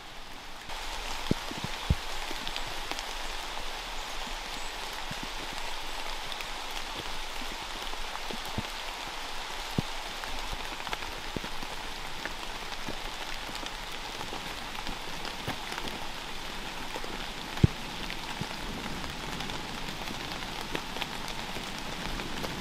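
Steady rain falling, with scattered louder single drops; it comes in suddenly just under a second in.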